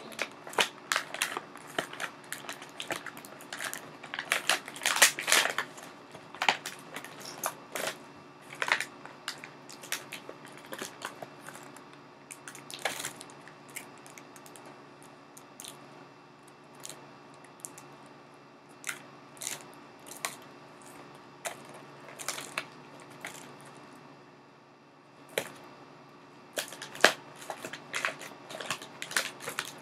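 Plastic toy packaging being handled and opened: irregular crinkles, crackles and clicks, dense in the first several seconds, sparser in the middle and picking up again near the end.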